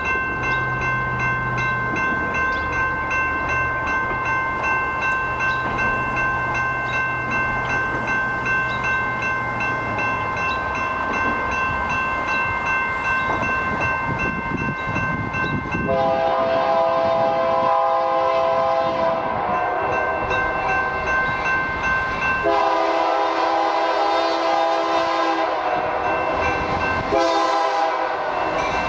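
A railroad grade-crossing bell rings steadily. About halfway in, the approaching BNSF C44-9W locomotive sounds its Nathan K3LA five-chime horn in a series of long blasts for the crossing, with the train's rumble building as it nears.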